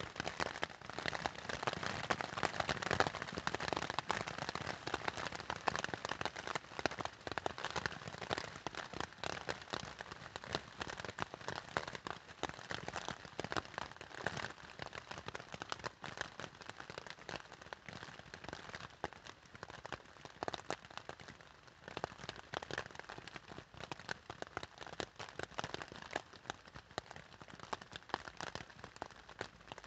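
Rain drumming on a tent's fabric: a dense, irregular patter of drops, heavier in the first few seconds and easing a little in the second half.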